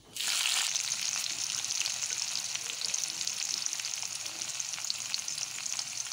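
Chopped garlic and green chillies dropped into hot oil in a wok: a sudden loud sizzle that settles into steady frying with fine crackles.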